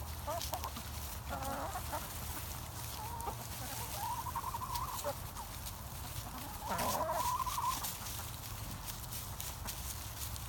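Backyard chickens clucking and calling while feeding, with short calls throughout and two longer drawn-out calls, the second, about seven seconds in, the loudest. Many small sharp clicks run under the calls.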